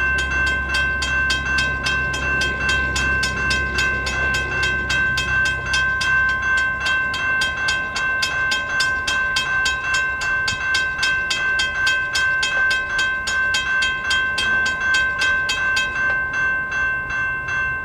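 Railroad grade-crossing bell ringing rapidly, about four strikes a second, then cutting off suddenly near the end. A low rumble sits under it for the first few seconds.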